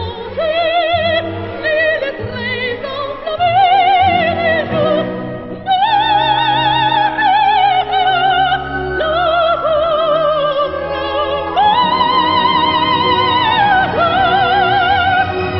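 Operatic soprano singing a French aria over an orchestra, with a wide vibrato and several long held high notes; the longest and highest comes about twelve seconds in.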